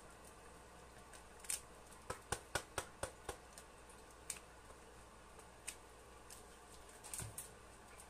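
Scattered sharp pops and clicks from a pan of thick, simmering carbonara cream sauce as it is stirred, coming quickest about two to three seconds in, then single ones, and a short cluster near the end.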